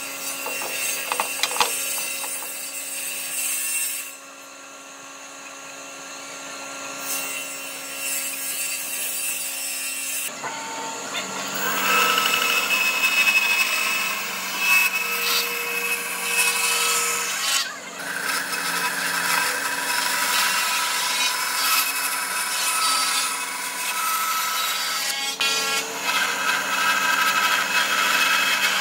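Band saw running and cutting through wooden boards, its blade whining steadily while in the wood. It goes quieter for several seconds a few seconds in, then the cutting grows louder from about the middle, with a brief dip partway through.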